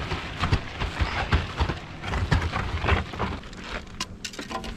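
Footsteps walking over the shore, about two steps a second, each a short thump with a crunch.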